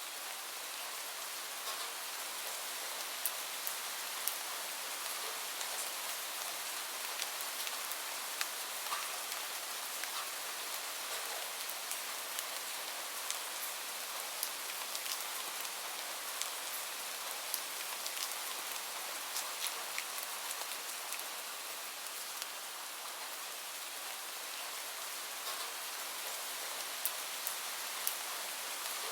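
Steady rainfall, a dense even hiss with many sharp drop ticks scattered through it as drops strike a surface.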